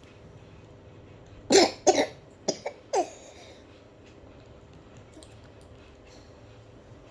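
A person coughing: a fit of about five harsh coughs in quick succession starting about a second and a half in, the first two the loudest. It is the cough of someone sick with a cough on waking up.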